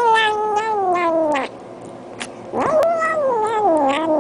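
A hungry cat giving two long, drawn-out meows, begging for food. The first is already under way and slides down in pitch until it stops about a second and a half in; the second starts about a second later, rising and then falling.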